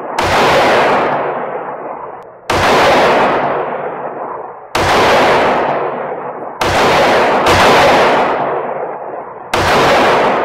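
Six 9mm shots from a Glock 17L long-slide pistol fired at a steady pace, roughly one every one to two seconds, with the last two of the middle pair closer together. Each crack rings on in the echo of an indoor range lane.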